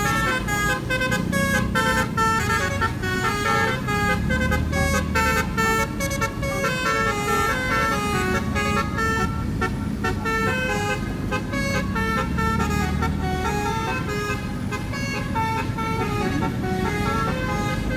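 Basuri telolet multi-tone horn on snail-type horns playing a tune: a continuous run of stepped notes that changes pitch several times a second, over a low rumble.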